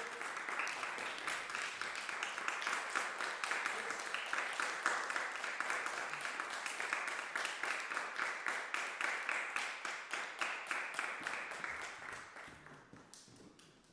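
Audience applauding, a dense patter of many hands clapping that dies away over the last two seconds.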